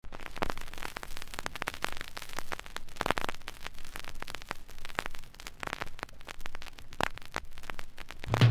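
Surface noise of a 7-inch vinyl single with the stylus in the lead-in groove: a hiss with irregular crackles and pops, a few of them louder.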